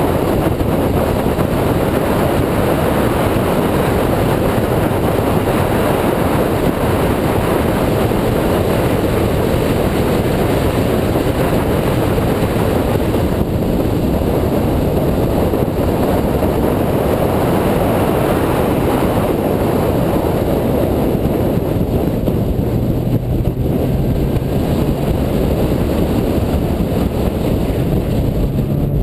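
Steady, loud rush of wind and road noise at speed, mixed with the 2004 Mini Cooper S's supercharged four-cylinder engine. Near the end the engine note rises as the car accelerates.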